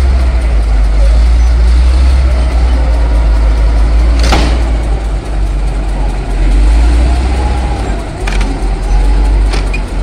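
Caterpillar D7G crawler bulldozer's six-cylinder diesel running under load with a heavy, steady low rumble as the machine crawls along. A sharp metallic clank about four seconds in, with lighter knocks near the end.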